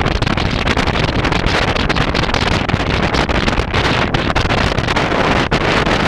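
Heavy wind buffeting the microphone while a small fishing boat runs across choppy, windblown water, with waves and spray hissing against the hull. Loud and steady, with an irregular flutter.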